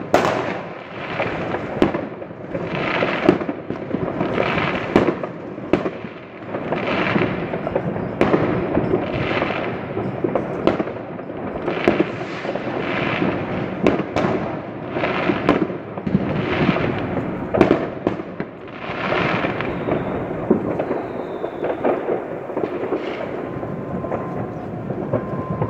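Fireworks going off: loud bangs about once a second over a constant crackle and popping of many more fireworks further away. The regular bangs thin out near the end.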